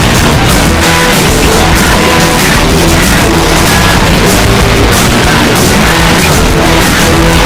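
Loud heavy rock music with distorted guitar, playing steadily throughout.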